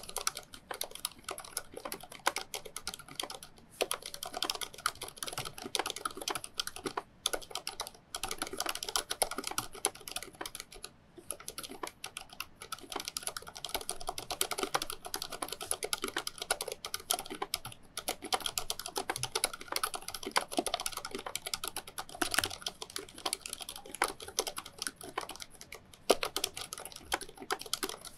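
Fast, continuous typing on a Waycos Thinkway full-size mechanical keyboard with Cherry MX Silent Red switches and thick sound-damping foam inside: a dense stream of key clicks, broken by a few brief pauses.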